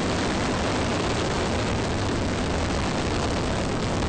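Rocket engines at liftoff: a steady, unbroken rushing rumble of exhaust noise.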